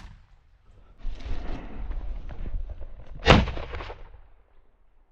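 A single shotgun shot about three seconds in, sharp and loud, with rustling movement through the brush before it.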